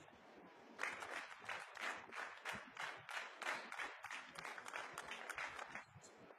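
Audience applause, a spell of dense hand clapping that starts about a second in and stops abruptly near the end.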